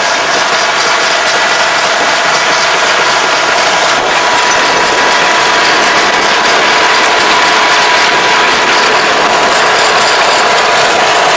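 Tractor engine running with a rear rotary tiller ridger and mulch-film layer at work: a steady, loud mechanical din of engine, spinning tines and rattling implement, with a faint thin whine.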